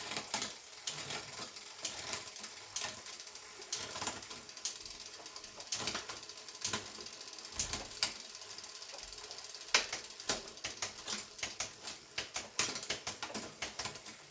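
Road bike drivetrain with a freshly cleaned chain and cassette being run through the gears: a steady ticking and rattling of the chain over the cassette and derailleur, with sharper clicks as it shifts between sprockets, several of them near the end.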